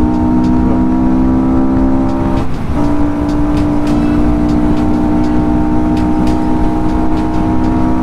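Motorcycle riding at steady speed: engine and wind rumble, with a sustained set of steady tones over it that drops out briefly about two and a half seconds in and comes back on slightly different notes.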